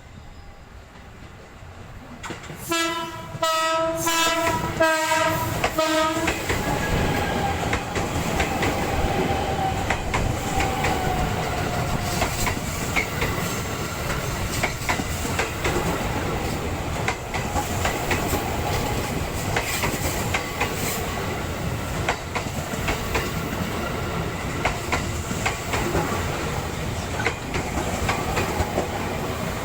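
A train horn sounds in several short blasts about three seconds in. Then a train passes close by, its wheels clacking steadily over the rail joints.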